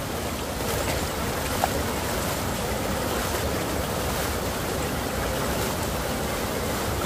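Steady rush of running water, with one small click about one and a half seconds in.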